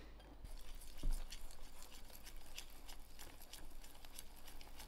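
A utensil stirring thick chocolate mug-cake batter in a bowl, with irregular light taps and scrapes against the bowl and one firmer knock about a second in.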